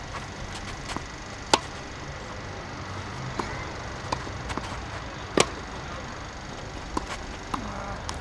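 Tennis rally: racquets hitting the ball and the ball bouncing on the court, a string of sharp pocks with the two loudest hits about a second and a half in and again about five and a half seconds in, lighter hits and bounces between them.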